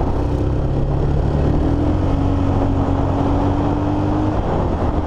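Motorstar Cafe 400 motorcycle engine pulling under throttle on the move, over steady wind rush. Its pitch rises slowly for a couple of seconds, then drops about four seconds in. The rider suspects a slipping clutch.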